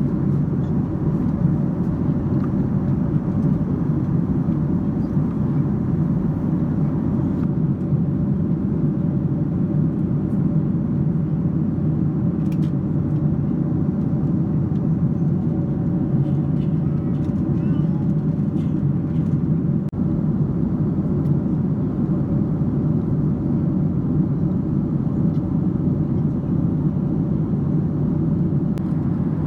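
Steady cabin noise aboard a Boeing 767-300ER airliner in flight: a constant deep rumble of engines and airflow with a faint hum, unchanging throughout.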